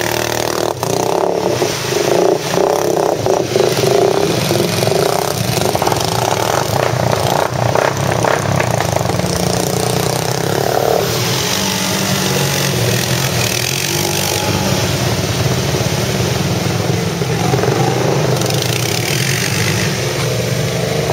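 ATV (quad bike) engines running and revving, one four-wheeler driving through deep muddy creek water while others run close by.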